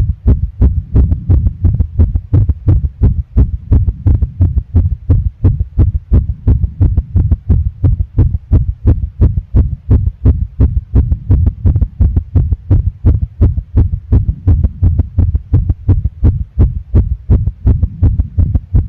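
A person's heartbeat: a fast, regular run of paired low thumps, the lub-dub of each beat.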